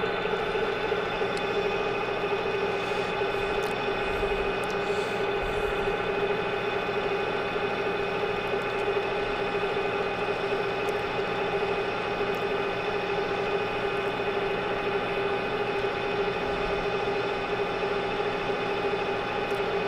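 Metal lathe running steadily under power feed, a steady hum with several even tones, as the tool takes a very light finishing pass along the shaft.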